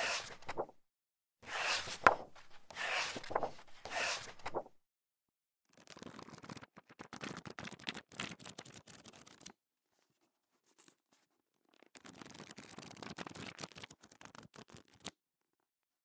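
Bursts of rustling and scraping handling noise, crackly and full of small clicks, coming and going in several stretches of one to three seconds and stopping about a second before the end.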